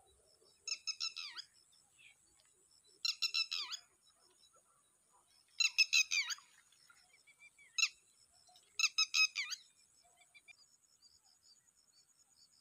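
A bird calling in five short bursts of shrill, squeaky notes, about two to three seconds apart, each burst falling away at its end.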